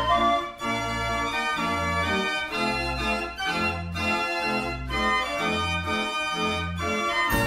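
Background music: sustained organ-like keyboard notes over a bass line that pulses about once a second.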